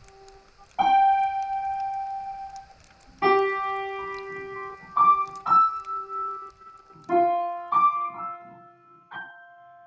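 Background music: slow, sparse piano, single notes and small chords struck about eight times and left to ring out and fade.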